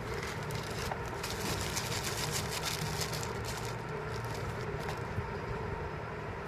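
Crinkling and rustling of packaging being handled, densest from about one to four seconds in, over a steady low rumble.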